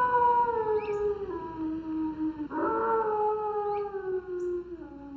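Red wolf howling: two long howls, each sliding slowly down in pitch. The first, already under way, ends about two and a half seconds in, and the second begins right after it.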